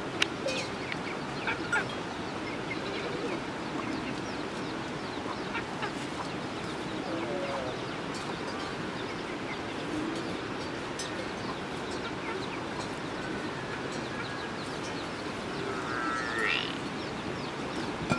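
Farmyard ambience: chickens clucking and birds calling over a steady outdoor hiss. There is a rising call about three-quarters of the way through and a few light knocks.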